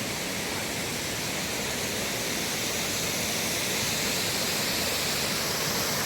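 Steady rush of Sycamore Falls' falling water, growing slowly louder.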